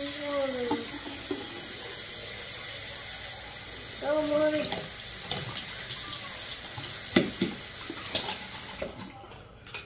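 Small push-button faucet running a steady stream of water into a sink, shutting off suddenly about nine seconds in, with a few clicks and knocks near the end.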